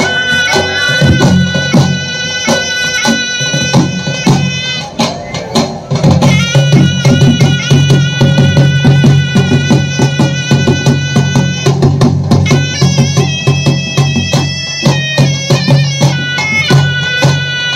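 Live folk dance music: a reedy wind instrument holds long, high melody notes over a low drone, while drums beat a steady rhythm.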